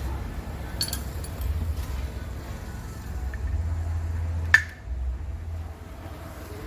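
Metal parts and tools being handled during a water pump repair: a few light clicks and one sharp clink about four and a half seconds in, over a steady low rumble.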